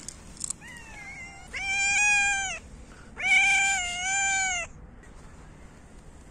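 A calico cat meowing: a short, softer meow near the start, then two long, loud meows.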